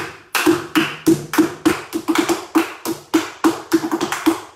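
Flamenco footwork: flamenco shoes striking a wooden floor in quick, uneven groups of heel and toe beats in a bulerías rhythm, about twenty strikes.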